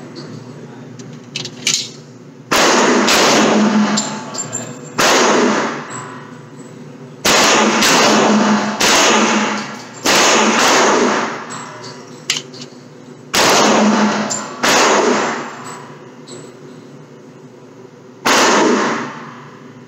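Gunshots fired one at a time in a string of about nine, at uneven gaps of one to four seconds, each ringing on in the echo of an enclosed range, with a few fainter cracks between them.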